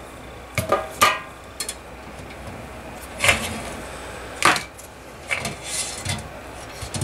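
A series of separate metal knocks and clinks: the lid of a metal parts-soaking can set down on the bench, then a piston knocking against the can as it is fished out of the cleaner. The loudest knocks come about three seconds in and a second after that.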